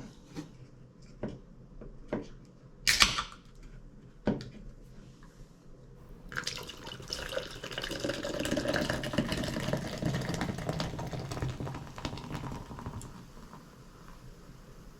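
A 12-ounce can of zero-sugar Mountain Dew cracked open with a short sharp hiss about three seconds in. The soda is then poured out, splashing and fizzing for about six seconds, with light handling clicks around it.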